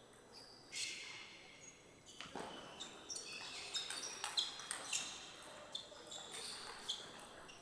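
Table tennis rally: the ball clicks off the rackets and the table in quick succession, starting about two seconds in, with short high squeaks among the hits.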